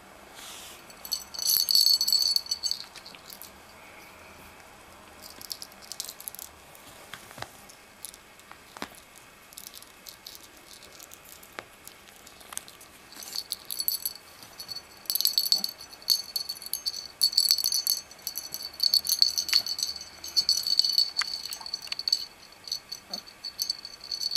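Small jingle bell on a cat toy jingling in irregular bursts, with scattered light clicks between; the jingling comes in a few short spells at first and becomes more frequent in the second half.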